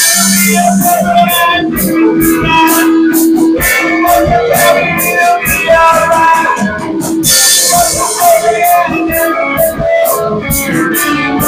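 Live band music led by guitar over a steady beat, with loud splashes of high noise right at the start and about seven and a half seconds in.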